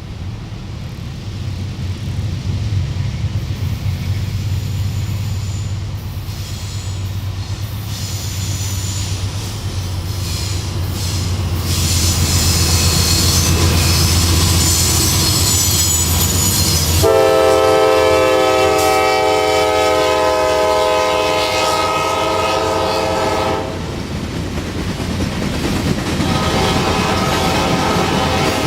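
Diesel locomotives of a CSX freight train working hard up an incline, their deep engine rumble growing as they approach. About halfway through, the locomotive air horn sounds for roughly six seconds, then the freight cars roll past with a steady rushing rattle.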